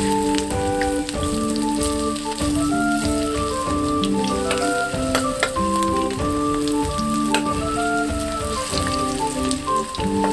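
Potato fritters frying in hot refined oil in a kadai: a steady sizzle and crackle with scattered small pops and clicks. Background instrumental music with held notes changing in steps plays over it.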